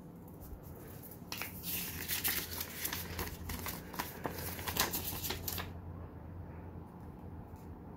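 Folded paper instruction leaflet being unfolded and handled, rustling and crackling from about a second in until about six seconds in.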